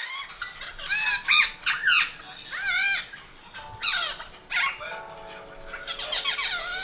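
Parrots calling: a string of short, shrill calls that slide up and down in pitch, coming in quick groups. Soft background music with held notes joins about halfway through.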